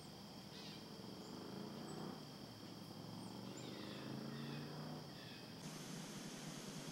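Black bears at a bait barrel making low, pitched vocal sounds in several stretches until about five and a half seconds in. A steady high whine and a few short bird chirps sit behind them, and near the end everything gives way to a plain hiss.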